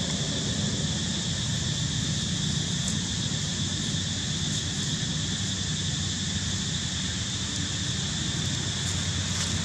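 Steady outdoor ambience: a low, even rumble under a continuous high-pitched drone, with no monkey calls.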